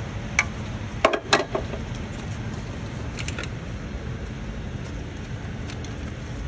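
Hand tools clinking against the steel injector feed line fittings of a Detroit DD-series diesel engine as the lines are loosened. A cluster of clicks comes about a second in and a few fainter ones around three seconds, over a steady low shop hum.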